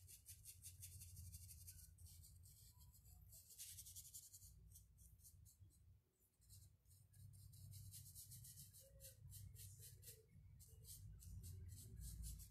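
Faint, quick scratching of a paintbrush stroking paint across a rough, cracked wooden board, with a short pause about halfway through, over a low hum.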